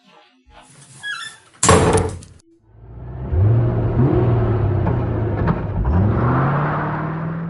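A loud thump about two seconds in, then an engine speeding up, its pitch rising twice before it fades.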